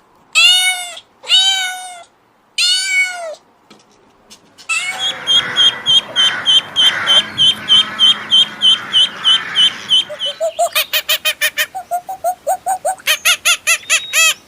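A cat meowing three times. After a short pause comes a long run of quick, evenly repeated high chirping calls, about three or four a second, and near the end a faster run of lower repeated calls from an animal that cannot be named.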